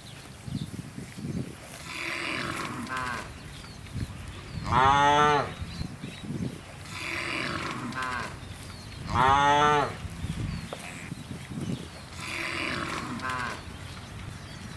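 Cows mooing, one after another: five calls of about a second each, the two in the middle louder and higher-pitched than the rest.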